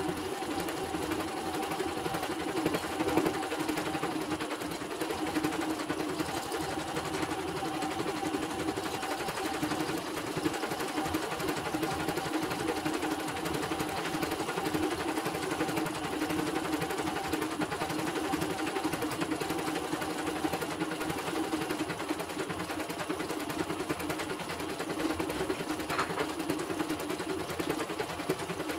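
CNY portable embroidery machine stitching a design: the needle bar runs at a fast, steady rate while the hoop carriage shifts the fabric, and the machine's running sound is even throughout.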